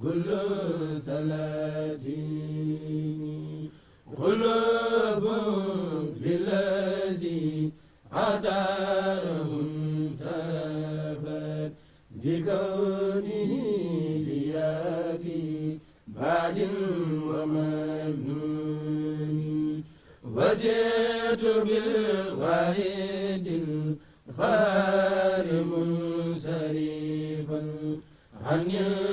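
Male voices chanting an Arabic devotional poem without instruments, in melodic phrases of about four seconds separated by brief pauses for breath.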